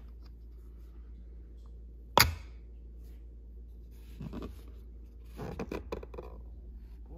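Brass latch on a wooden case flipping open with one sharp metallic click about two seconds in. The lid is then lifted, with soft scraping and a short run of small clicks and knocks near the end.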